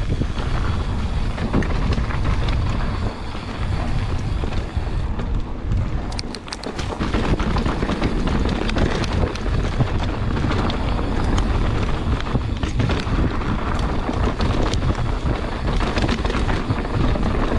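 Mountain bike riding down a dirt trail: wind buffeting the microphone over the rolling tyres, with frequent knocks and rattles from the bike over bumps.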